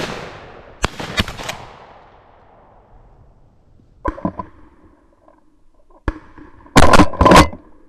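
Shotgun blast right at the start, its echo fading over about two seconds, then three quick sharp cracks about a second in. A few lighter knocks follow, and near the end comes a loud, rough burst of noise lasting under a second.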